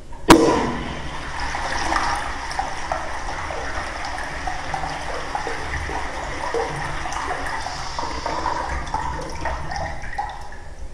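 Porcelain wall-hung urinal flushing: a sharp clack as the flush valve is tripped, then water rushing through the bowl for about ten seconds, dying away near the end.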